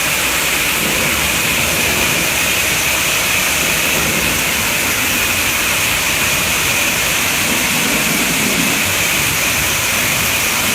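Hot-water pressure washer spraying a warehouse wall: the steady hiss of the high-pressure jet.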